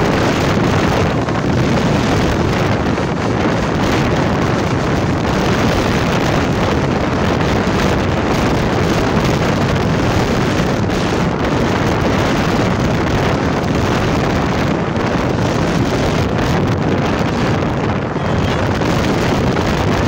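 Wind buffeting a phone microphone held out of a moving car's window: a steady rushing noise.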